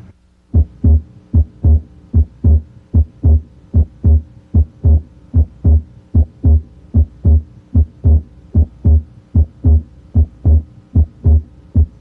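Heart sounds heard through a stethoscope at the left third intercostal space beside the sternum: a steady lub-dub of S1 and S2, a little over one beat a second, at a spot where both the aortic (A2) and pulmonic (P2) components of S2 may be heard.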